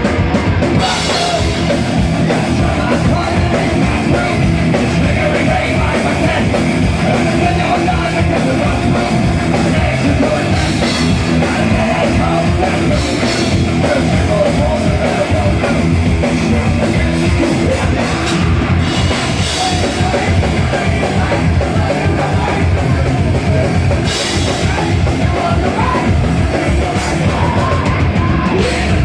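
Loud heavy metal band playing live, with a drum kit and distorted guitars, unbroken.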